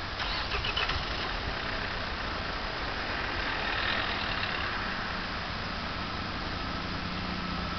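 Jet engines of a Boeing 747 at take-off power, a steady broad rumble and roar during the take-off roll, with a low steady hum joining about five seconds in.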